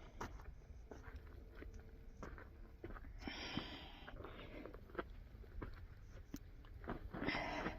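Handling noise from a phone being gripped and moved: scattered small clicks, scrapes and rustles, with two short breathy rustling bursts, one midway and one near the end.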